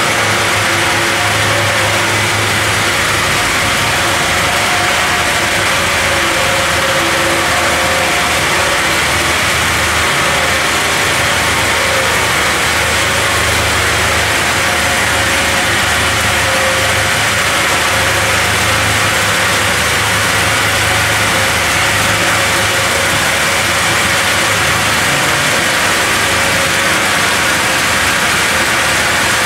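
LBL Brenta CD horizontal bandsaw running through a large log mid-cut, its band blade sawing the wood with the machine's motors, in a loud, steady, unchanging sound.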